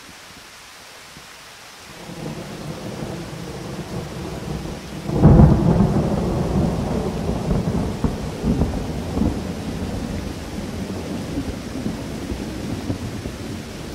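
Thunderstorm: a steady hiss of rain with thunder rumbling in about two seconds in, then a loud thunderclap about five seconds in that rolls on and slowly dies away.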